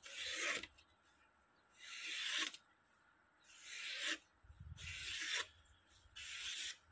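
A freshly polished cleaver blade slicing through a sheet of paper in five short rasping strokes, each under a second, a test of how sharp the edge now is.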